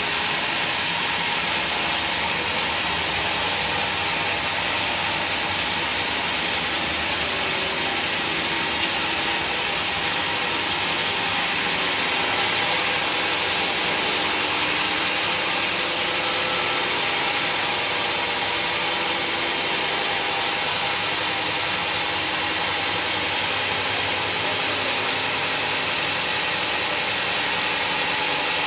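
Woodworking machinery running steadily, a loud even hiss-like machine noise with no breaks.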